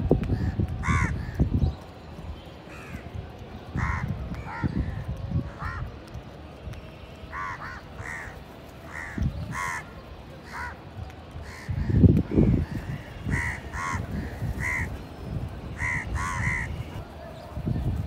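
A feeding flock of Indian house crows cawing, with many short, harsh caws overlapping all the way through. Low thuds and rustles come and go among the calls, loudest about twelve seconds in.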